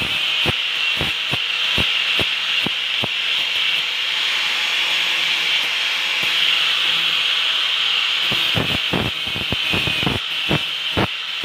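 Electric angle grinder running with a steady high hiss as its disc works the steel of a machete blade. Repeated short knocks sound over it, coming thick and fast near the end.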